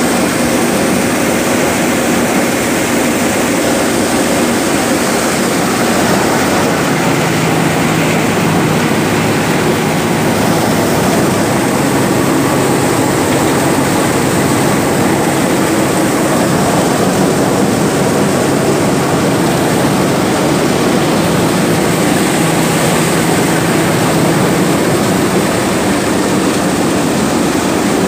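Shri Ganesh mustard thresher, driven by a Farmtrac 45 tractor, running steadily while threshing mustard: a loud, even mechanical din with a faint low hum beneath.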